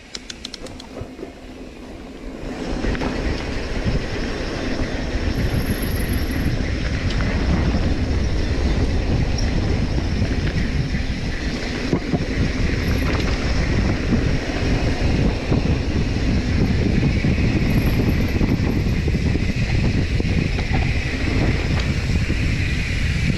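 Mountain bike riding down a dirt singletrack: tyres rumbling over the rough trail, the bike rattling, and wind on the microphone. The noise builds over the first few seconds as the bike picks up speed, then stays steady.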